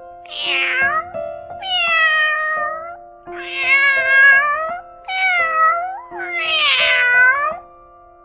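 A domestic cat meowing five times, each meow a pitched call that bends up and down, about half a second to a second and a half long, over steady background music.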